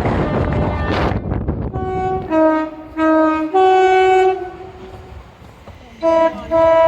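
A British train's two-tone horn giving a run of blasts that alternate between a high and a low note, with two short low blasts near the end. Before the horn, about the first one and a half seconds hold the rumble of a train on the track.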